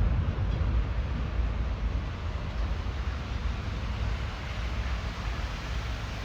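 Low rumble of a New York City subway train fading away, slowly dying down, over a steady wash of wind noise.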